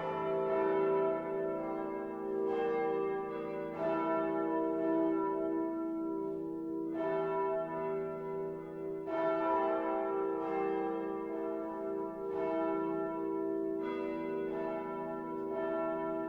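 Full peal of the church bells of St. Andreas: several swinging bells strike out of step, a new stroke every one to three seconds, over a steady, overlapping hum of their ringing tones.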